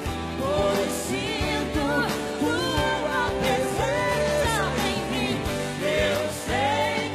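Brazilian gospel song performed live: a woman's and a man's voice singing in Portuguese over a band with keyboards.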